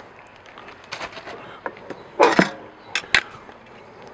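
Metal grill tongs knocking and clinking against a glass baking dish as marinated steaks are handled: a handful of separate sharp knocks, the loudest a little over two seconds in.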